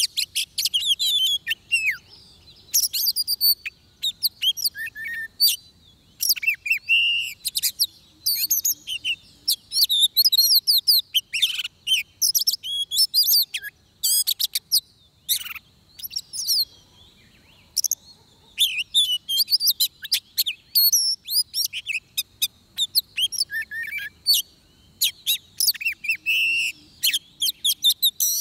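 Oriental magpie-robin singing a long run of rapid, varied whistled phrases broken by short pauses, over a faint steady high tone.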